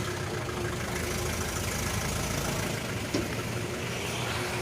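Speed boat's outboard engine running steadily with a constant hum, and one short click about three seconds in.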